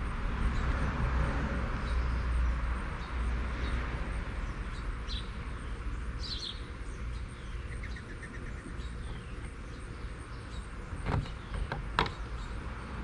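Birds chirping now and then over a steady low hum, with a short quick trill about two-thirds through. Two or three sharp clicks or knocks come close together near the end.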